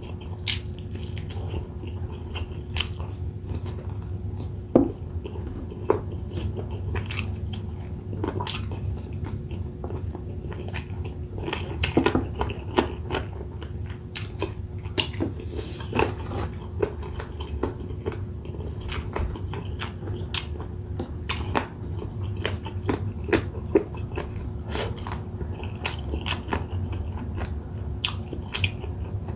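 Close-miked eating: a person biting and chewing grilled inasal chicken, with many short clicks and smacks throughout, over a steady low hum.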